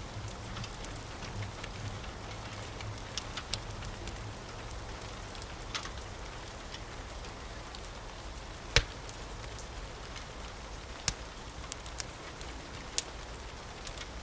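Steady rain with a wood fire crackling, its sharp pops scattered and the loudest about nine seconds in. A low rumble fades out over the first few seconds.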